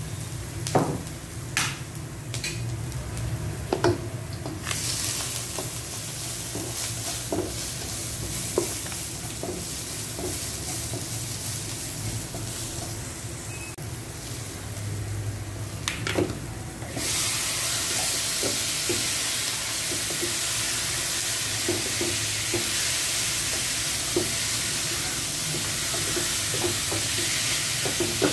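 Chopped garlic and onion sizzling in oil in a nonstick wok, with a spatula knocking and scraping against the pan. About seventeen seconds in the sizzle turns suddenly louder and stays loud as the marinated pork ribs go into the hot pan and fry.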